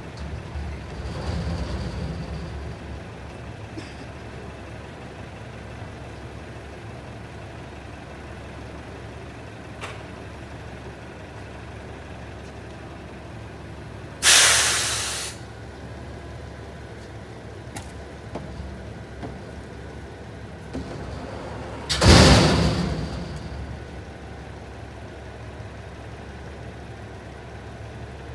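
Mack front-loading garbage truck's diesel engine idling steadily, with two loud hisses of released air like an air brake, about halfway through and again about eight seconds later, each starting sharply and fading over about a second; the second is louder and reaches lower.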